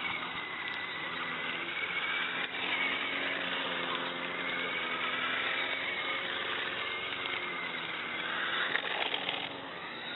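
Toy RC car's small electric drive motor and gears whining, the pitch slowly rising and falling as the car speeds up and slows.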